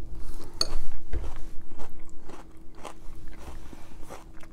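Mouthful of crispy rice cereal (Cocoa Pebbles) in oat milk being chewed, with crisp, irregular crunches. The crunching is loudest for the first couple of seconds and then softer.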